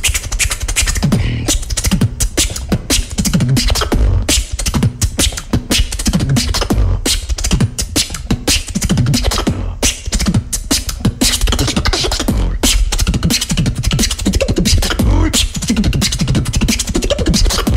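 Solo human beatboxing into a handheld microphone: a dense, fast stream of kick and snare clicks over low bass hums that slide in pitch.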